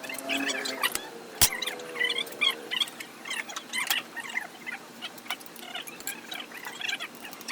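Birds chirping repeatedly, with a few sharp clicks, the loudest about a second and a half in.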